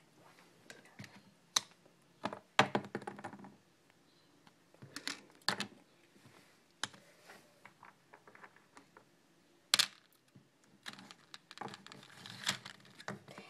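Irregular light clicks and taps of small plastic toy figures and pieces being handled on a hard surface, coming in small clusters with gaps between, the sharpest click about ten seconds in.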